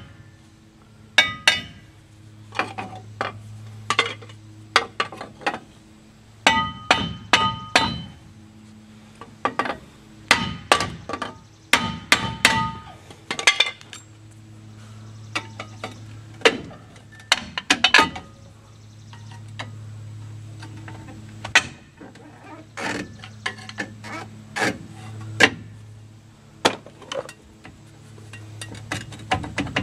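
Hammer blows on a 1994 Chevy pickup's cast-iron rear brake drum, coming in clusters of several quick ringing strikes with pauses between. The drum is being knocked loose because it is stuck on the lip that the worn brake shoes have cut inside it.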